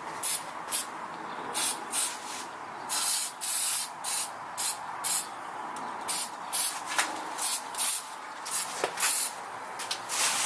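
A spray nozzle hissing in many short, irregular bursts, roughly two a second, with one longer burst about three seconds in.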